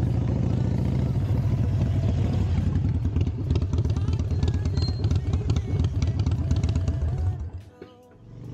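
Harley-Davidson Sportster Iron 883's air-cooled V-twin, fitted with an open pod air filter, running as the bike rides along, a steady rapid pulsing exhaust note. It stops abruptly about seven and a half seconds in.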